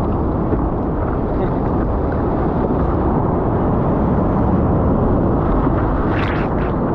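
Shallow ocean surf rushing around a surfboard, heard as a steady low rush close to the water. About six seconds in, a breaking wave washes over the board with a brief splash.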